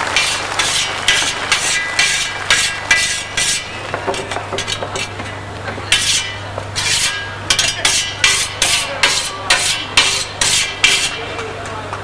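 A series of short rasping scrapes, irregular, two to four a second, with a pause of about two seconds in the middle.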